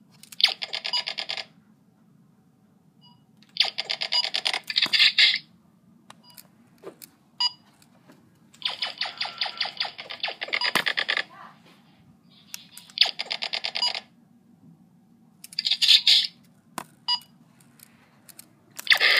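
Laser tag blaster firing sound effects: five separate bursts of rapid electronic pulsing, each a second or two long, over a low steady hum.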